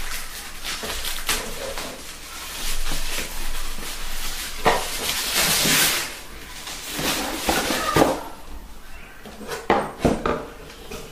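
Handling noise as a speaker is lifted out of a cardboard box and pulled from its white protective wrap: crinkling and rustling, densest about halfway through, with a few sharp knocks against the box.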